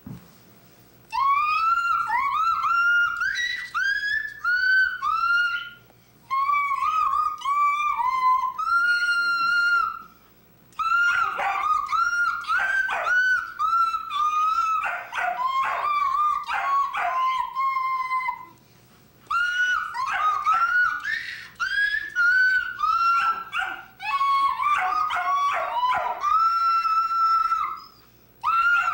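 Old English Sheepdog howling in high-pitched, wavering, whining cries, in four long runs with short breaks between them.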